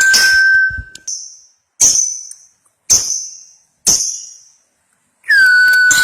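Lovebird's long rattling chatter ('ngekek') over a steady high tone, breaking off about a second in. Four sharp, ringing calls follow about a second apart, and the chatter starts again near the end.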